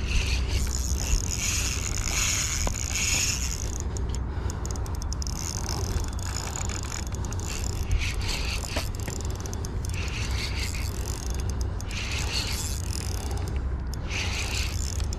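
Spinning reel being cranked to retrieve line, its gears and bail whirring in spells of a second or two with short pauses between turns. A steady low rumble runs underneath.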